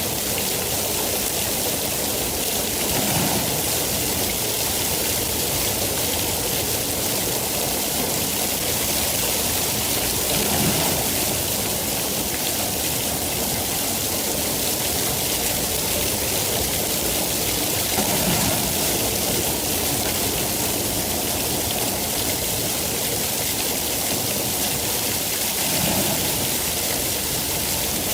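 Steady rainfall, a continuous even hiss of falling rain, with a brief low swell about every seven or eight seconds.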